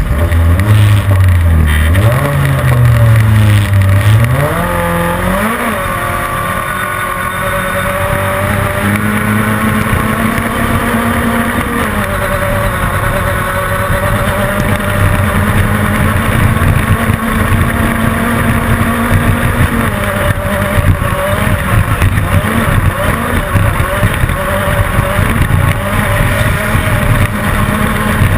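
Class 10 off-road race car's engine: revs rise and fall over the first six seconds, then hold high and steady as the car runs at racing speed.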